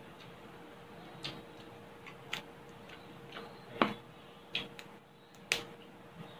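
Crisp, crackling skin of crispy liempo (deep-fried pork belly) crunching as it is chewed and broken: a string of sharp, irregular cracks, about seven, the loudest a little before four seconds in and again past five seconds.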